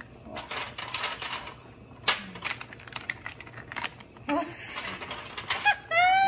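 Hard snail shells clicking and clacking against one another as they are piled one by one into a full stew pot, a run of irregular sharp clicks.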